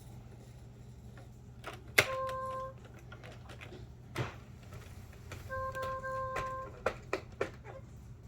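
A sharp click followed at once by a short, steady electronic beep, then another click, a second, longer beep, and a few lighter clicks near the end.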